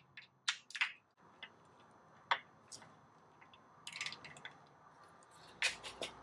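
Hand ratchet working on a transmission's lower bolts from under the car: faint scattered clicks, with short runs of ratchet ticking about four seconds in and again near the end.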